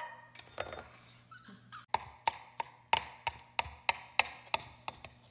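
Kitchen knife chopping cucumber on a wooden cutting board: a few light cuts, then from about two seconds in a regular run of sharp taps, about three a second.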